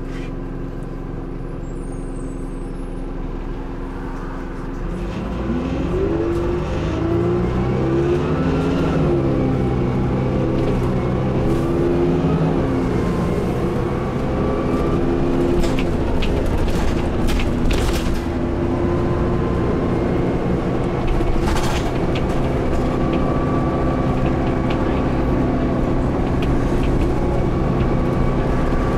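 Dennis Dart SLF bus engine heard from inside the passenger saloon: steady at first, then revving up from about five seconds in as the bus pulls away, its pitch climbing and dropping back twice as it works up through the gears, before settling into a steady run. A few sharp rattles and knocks from the bus body come through in the middle.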